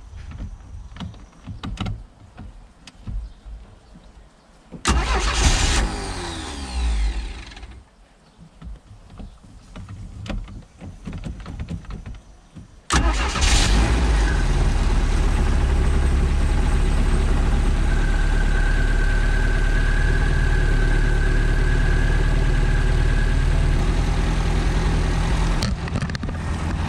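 MerCruiser 3.0 L four-cylinder sterndrive being started after winter storage, out of the water on flush muffs. The starter cranks for about three seconds without the engine catching. On the second try, about thirteen seconds in, it fires and settles into a steady idle, with a thin steady tone for a few seconds while it runs.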